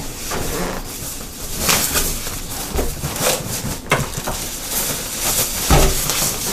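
Protective packaging bag rustling as it is pulled off an air fryer, with a few sharper crackles along the way.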